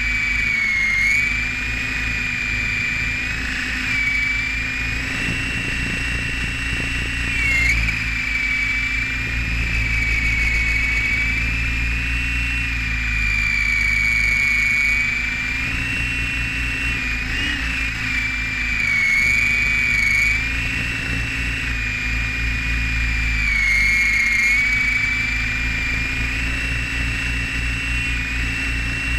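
Radio-controlled helicopter's motor and rotor heard up close from a camera mounted on the helicopter: a steady high whine over a low drone. The whine dips and rises in pitch several times during the flight.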